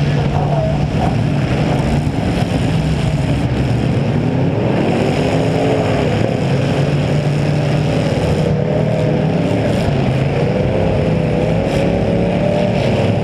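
V8 demolition derby car engines running loudly, the nearest under the camera on the 1990 Chevy Caprice Estate Wagon's hood, with revs rising and falling several times.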